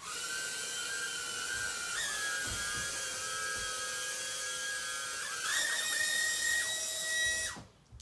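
Holyton HS330 mini quadcopter's small motors and propellers whining as it lifts off from a palm and hovers. The pitch steps twice as the rotors change speed, rising higher about five and a half seconds in, then the motors wind down with falling pitch and stop shortly before the end.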